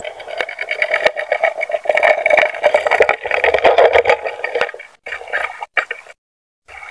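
Muffled rushing water noise picked up by an action camera underwater, with many small clicks and knocks. The sound cuts out to silence twice near the end.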